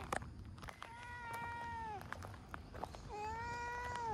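Orange tabby cat meowing twice. Each meow is long and held at an even pitch, then drops at the end; the first starts just under a second in and the second about three seconds in.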